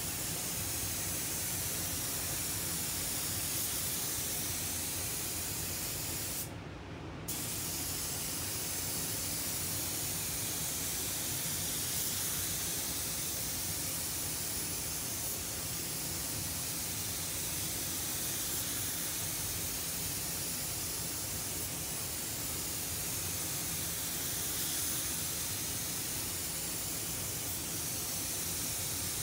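Compressed-air paint spray gun hissing steadily as clear coat is sprayed onto a car panel, the trigger let go for under a second about six and a half seconds in. A steady low background hum, likely the spray booth's extraction, runs underneath.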